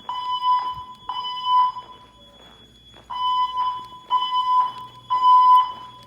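Wheelock E70 speaker strobes on a Silent Knight IFP-100 voice-evacuation system sounding the fire alarm alert tone: a steady high beep in the three-pulse temporal pattern, two groups of three beeps with a short pause between them.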